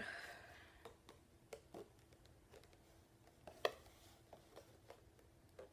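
Faint handling noises of a cardboard box being opened: a short scraping rustle at the start, then scattered small taps and clicks, the sharpest about three and a half seconds in.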